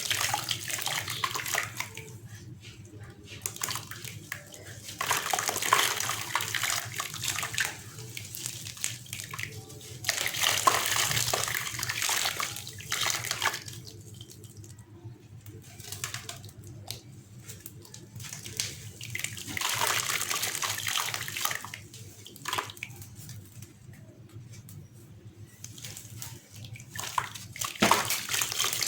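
Gritty sand-cement chunks crumbling apart in water, a rushing, gritty noise that comes in surges of a few seconds with quieter stretches between.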